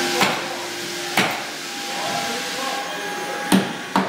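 Four sharp hammer knocks: one near the start, one about a second in, and two close together near the end. Under them runs the steady hiss and hum of a floor machine.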